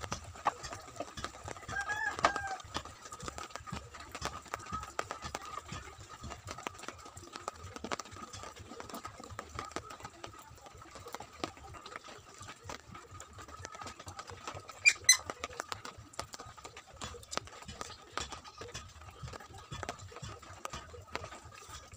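Hand screwdriver driving wood screws to fasten a 12-inch speaker driver into a plywood cabinet: scattered small clicks and scrapes of the screws and tool, with two sharp knocks about 15 seconds in.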